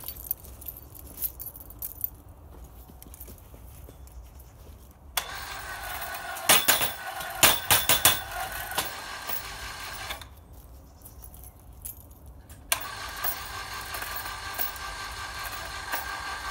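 Mains-powered electric scaffolding winch motor running under load in two pulls of about five and four seconds, with a pause between, as it drags a concreted-in metal fence post out of the ground. Several loud sharp knocks and cracks come during the first pull.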